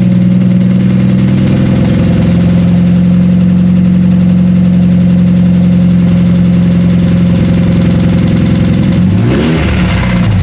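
Straight-piped exhaust of a 2007 Mazda 6's 2.3-litre four-cylinder, with no catalytic converters or mufflers, held at a steady raised rev for most of the time, then dropping back toward idle near the end. The engine has rod knock from a spun connecting-rod bearing.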